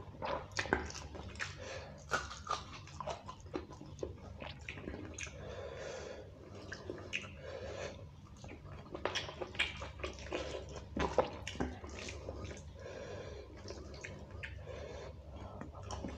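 Close-up eating by hand: fingers mixing rice and beef curry on a steel plate, and chewing, in many short, irregular wet clicks and squishes.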